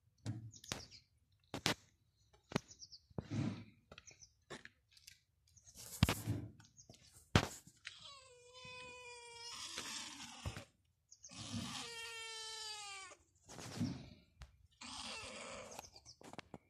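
Domestic cat meowing: three long drawn-out meows in the second half, each falling in pitch. Before them, a run of short knocks and clicks.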